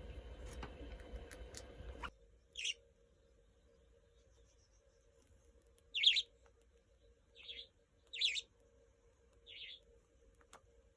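Small pet birds giving five short, single chirps, a second or two apart, over a faint steady hum. In the first two seconds a louder steady background with a few faint clicks is heard; it stops abruptly.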